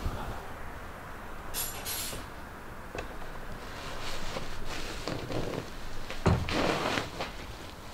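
Outbuilding's double doors being opened, followed by movement and a sharp thump about six seconds in.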